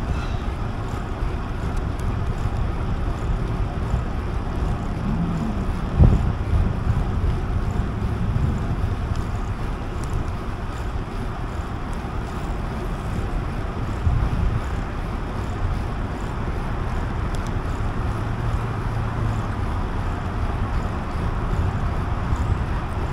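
Wind buffeting the microphone of a camera riding along on a moving bicycle: a steady low rumble, with a short thump about six seconds in.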